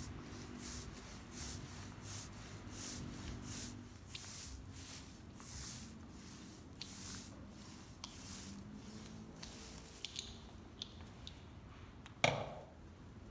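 Small roller being worked back and forth over wet epoxy on plywood, a swishing stroke about one and a half times a second that stops about ten seconds in. Near the end comes a single sharp knock as the roller is set down.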